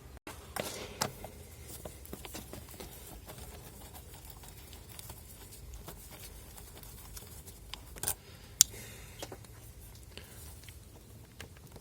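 Scattered clicks and light knocks of plastic parts being handled while the air filter housing is unclipped and lifted out of a Ford Transit Connect engine bay. The sharpest click comes about eight and a half seconds in.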